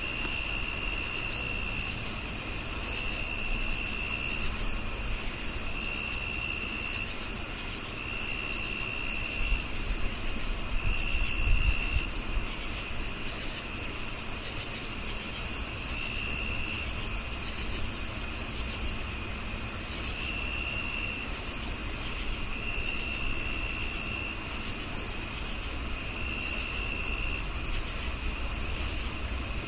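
Several crickets calling together: one steady high trill, one regular chirp at about three a second, and a lower trill that comes in spells of about a second. A brief low rumble sounds about eleven seconds in.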